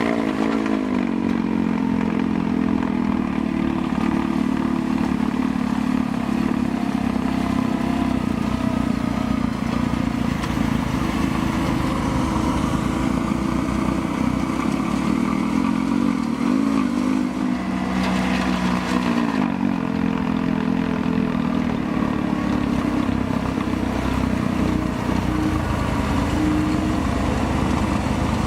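Yanmar S270V skid steer's diesel engine running steadily, its pitch sliding down and back up a few times as engine speed changes.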